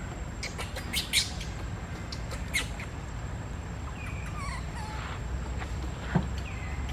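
A baby monkey squeaking and chirping: short high squeaks in the first three seconds, then a few wavering calls about four seconds in, over a steady low rumble.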